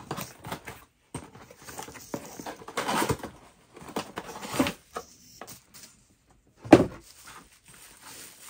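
Cardboard gift box being opened and a bubble-wrapped glass teapot lifted out: on-and-off rustling and crinkling of cardboard and plastic bubble wrap, with one loud sharp crackle a little before the end.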